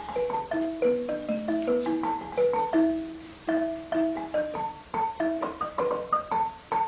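Background music: a quick melody of short struck notes, several a second.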